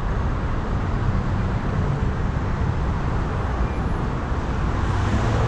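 Steady vehicle noise: engines running with traffic on a city street, a low hum under an even rush.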